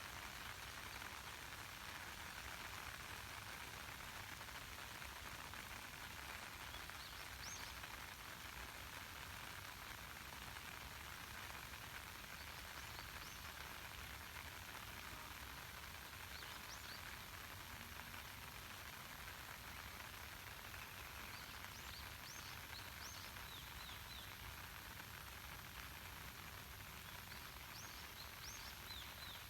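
Steady light rain falling on a lake, an even soft hiss. Faint high bird chirps come now and then, a few around 7, 13 and 17 seconds in and more often in the last several seconds.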